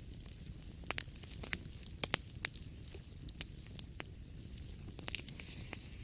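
Wood fire crackling, with irregular sharp pops over a low steady rumble and a brief hiss about five seconds in.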